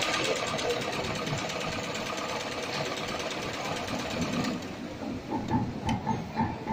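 Heavy-duty industrial pattern sewing machine stitching through a bag handle, a fast, even needle chatter that stops about four and a half seconds in. Scattered lighter clicks and knocks follow.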